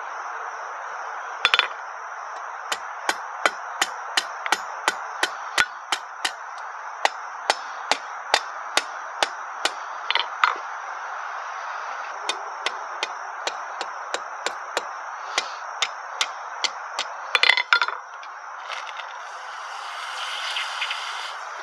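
Hand hammer striking a red-hot 1/2-inch square steel bar on an anvil, a steady run of sharp ringing blows about two a second. The blows stop briefly, resume, and a few louder, closer-spaced blows come near the end.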